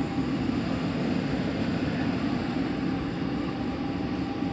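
Running HVAC air handler in an attic, its blower giving a steady low rushing drone.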